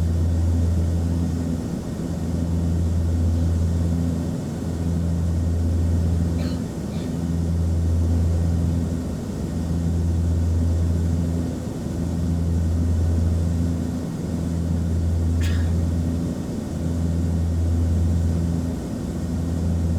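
Cabin drone of an Antonov An-24's twin turboprop engines in flight: a loud, steady low hum that swells and fades about every two seconds. A faint brief squeak about six seconds in and again near the middle.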